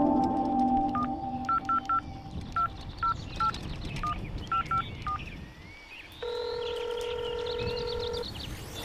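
Telephone keypad touch-tones being dialed: about a dozen short two-note beeps in an irregular rhythm. These are followed by a steady tone held for about two seconds.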